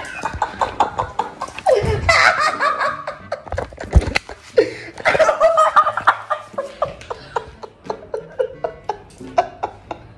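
People laughing hard in repeated bursts, with a single thump about four seconds in.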